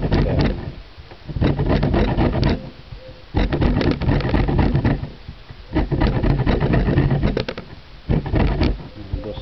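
Bergamot orange peel being grated on the metal face of a box grater: quick rasping strokes in about five spells of one to two seconds each, with short pauses between.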